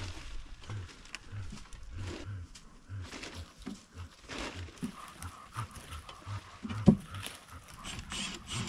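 A dog panting close by in quick, uneven breaths, with one sharp knock about seven seconds in.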